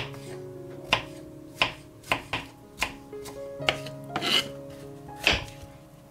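Kitchen knife slicing button mushrooms on a plastic cutting board: about ten irregular knocks as the blade cuts through and hits the board, over background music.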